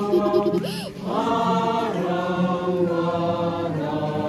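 A group of voices singing a hymn together in long held notes, with a short break between phrases about a second in.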